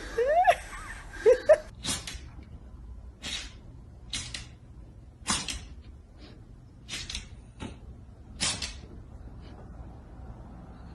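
A series of sharp knocks or clatters, one every second or two at irregular spacing, after two short rising calls in the first second and a half.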